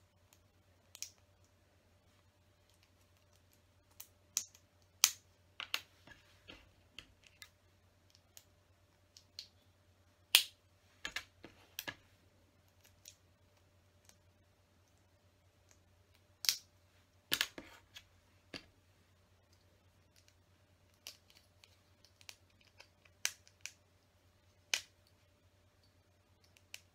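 Small plastic LEGO window pieces clicking and snapping as they are pressed together by hand, in scattered sharp clicks with irregular gaps, over a faint steady low hum.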